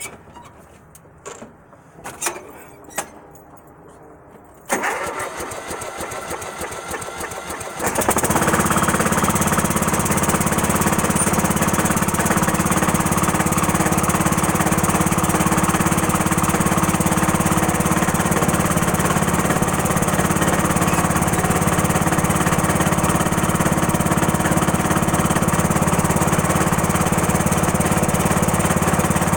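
A Cub Cadet mower engine, said to have a bad motor, cranks over for about three seconds after a few clicks, catches, and runs on steadily and loudly.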